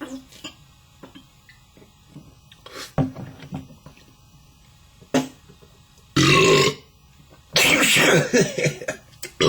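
A man belching: small clicks and short sounds first, then one short loud burp about six seconds in and a long burp of about a second and a half near the end. The burps are kind of liquid.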